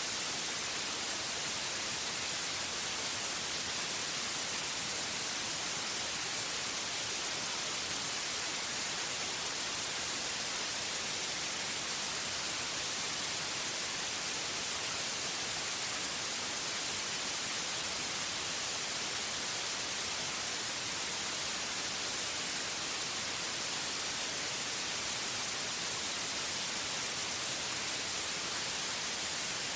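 Steady synthetic white noise: an even, unchanging hiss strongest in the upper range.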